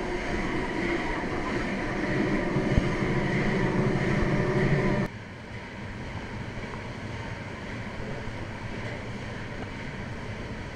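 Twin-cylinder steam engine of a sidewheel paddle steamer running, its crankshaft turning with dense mechanical noise. About five seconds in the sound cuts abruptly to a quieter, even rushing noise.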